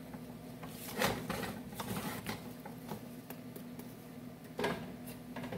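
Wooden spatula scraping and knocking against a nonstick frying pan as diced avocado, tomato and bread are stirred, a few sharp knocks standing out, the loudest about a second in and another near the end, over a steady low hum.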